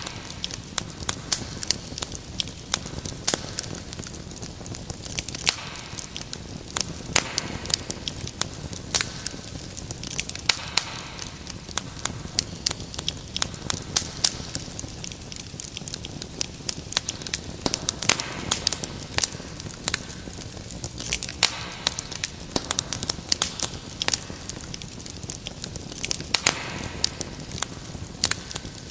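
Wood fire crackling in a fireplace: irregular sharp pops and snaps over a soft steady hiss, with denser bursts of crackling every few seconds.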